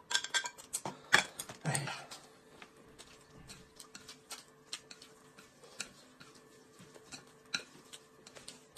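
A metal spoon scraping and tapping in a small can of chili sauce for the first two seconds, then small irregular clicks and taps of chopsticks against a plate as noodles are mixed and eaten.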